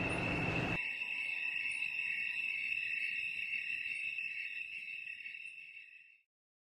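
Insects chirring in a steady high-pitched drone, fading out about six seconds in.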